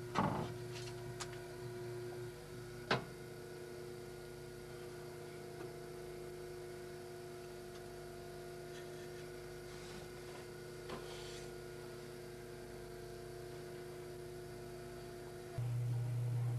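A faint steady hum with a few light clicks; the hum jumps louder near the end.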